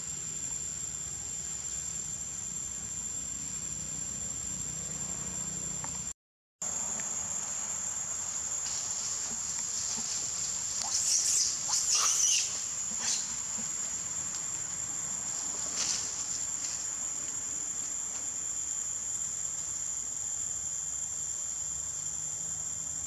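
Steady high-pitched drone of forest insects, one unbroken tone that drops out for a moment about six seconds in. About halfway through, a few short, louder noises rise over it for a second or two.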